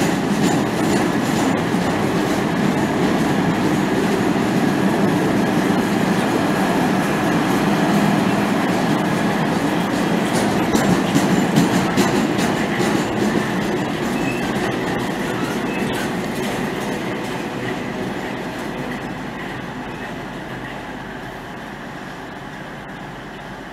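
Long train of covered car-carrier freight wagons rolling past on the rails, a steady clatter of wheels that fades over the last ten seconds as the end of the train draws away.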